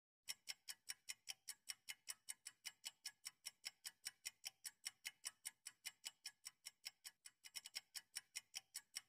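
Clock-ticking sound effect counting down the answer time for a quiz question: an even tick-tock of about four ticks a second, starting a moment in.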